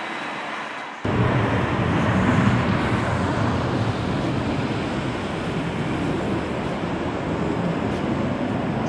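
Jet engine noise from an Airbus A330-300's General Electric CF6 turbofans as the airliner rolls for takeoff: a steady broad roar. About a second in it jumps abruptly louder.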